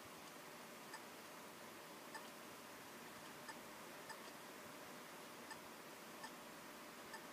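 Near-silent hiss with faint, short ticks about once a second, slightly unevenly spaced.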